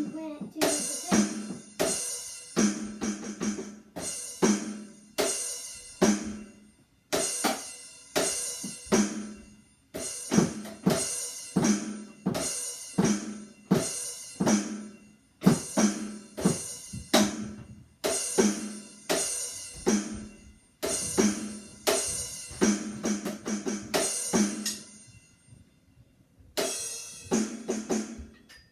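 Drum kit played in short runs of quick hits, about one run a second, with cymbal ringing over the strokes; it stops briefly near the end before one more run.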